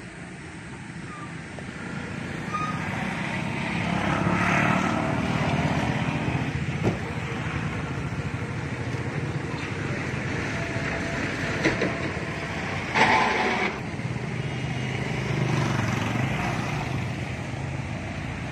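Vehicle engines running and passing in road traffic, swelling a few seconds in and again near the end, with indistinct voices and a few short sharp knocks.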